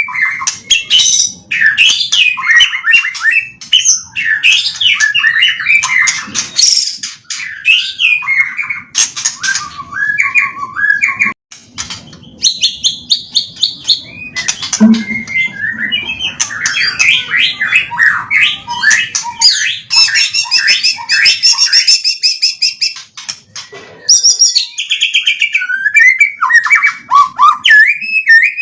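White-rumped shama (murai batu) singing a loud, varied song of whistled glides, rapid trills and chattering phrases, its learned repertoire of imitated calls, with brief pauses about 11 and 24 seconds in.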